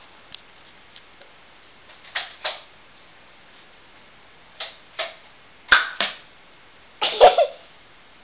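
Short, sharp clicks or knocks in pairs about a third of a second apart, four times, the last pair with a brief tonal edge.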